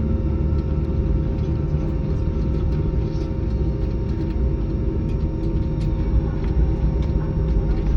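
Steady low rumble of cabin noise inside an Embraer 195-E2 on the ground before takeoff, with a constant mid-pitched hum and a few faint ticks.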